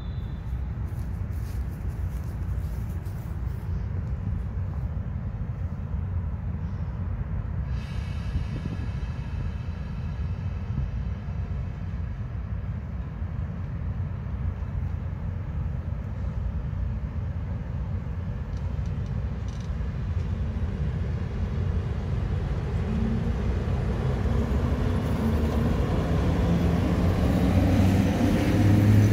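Train approaching: a steady low rumble that grows louder over the last several seconds, with a low engine drone coming in near the end.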